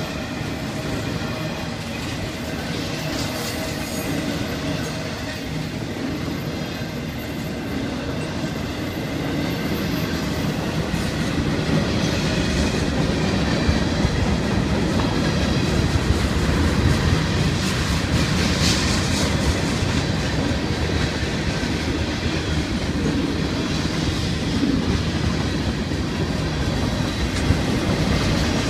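Freight cars of a passing Florida East Coast Railway train rolling by close up: a steady rumble of steel wheels on rail with a clickety-clack over the joints. The rumble grows louder about twelve seconds in.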